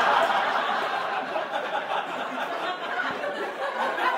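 Live audience laughing after a punchline, a loud wave of laughter that slowly tapers off.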